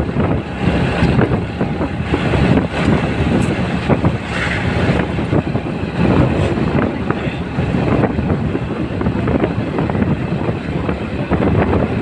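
Motorcycle engine running steadily while riding along a road, with wind buffeting the microphone.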